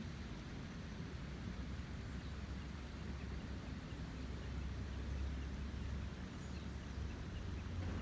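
A river running high in the rainy season, its water rushing steadily with most of its weight in a deep low rush under a broad hiss.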